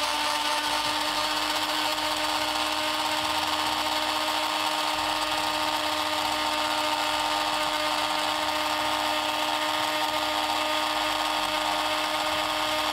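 Countertop blender motor running at a steady speed with an even whine, blending thin egg yolks and mustard into a smooth base before any oil is added.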